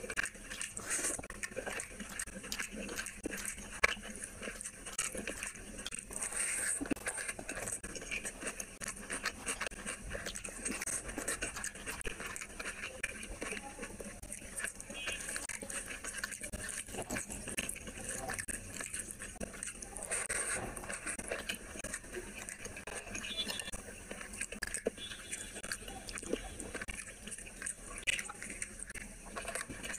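Close-miked eating sounds: chewing and wet mouth smacking of rice and curry eaten by hand, a steady stream of irregular smacks and clicks.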